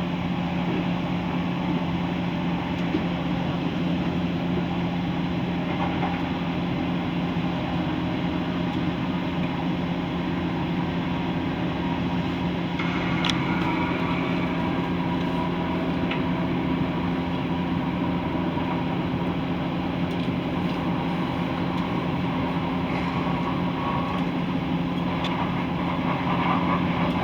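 Class 170 Turbostar diesel multiple unit's underfloor diesel engine running at a steady speed, heard from inside the carriage as an even drone that holds one pitch throughout.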